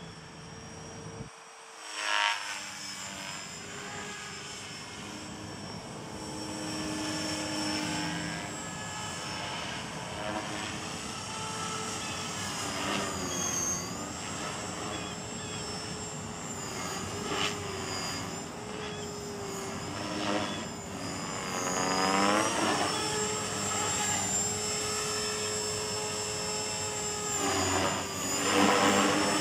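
Align T-Rex 450 Sport electric RC helicopter in flight: a steady whine from the motor and rotor blades. Its pitch swoops down and back up and grows louder as the helicopter passes close, once about two-thirds of the way through and again near the end.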